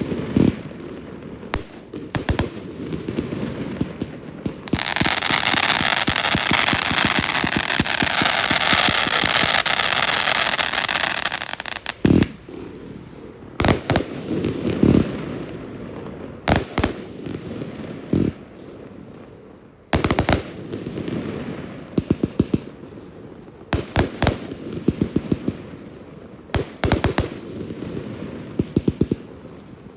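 Fireworks display firing: sharp bangs and rapid volleys of cracks, with a long dense crackling from about five to twelve seconds in.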